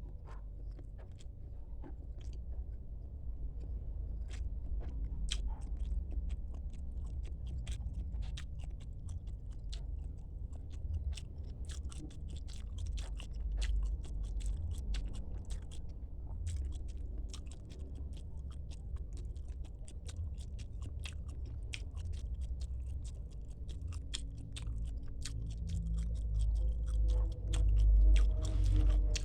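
Close-miked chewing and biting, with many small crisp crunches and wet mouth sounds; louder near the end.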